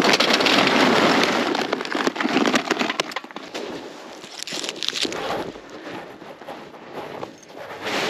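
Charcoal briquettes clattering into a metal chimney starter: a dense rush of hard knocks for the first few seconds, then scattered clicks and crackles.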